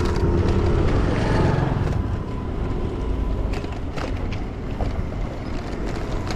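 Steady low rumble of wind on the microphone while riding a bicycle along a town street, mixed with the sound of motor traffic around it. It is a little louder in the first couple of seconds.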